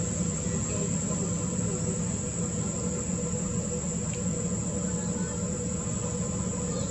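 Steady high-pitched drone of insects, with a steady low rumble beneath it.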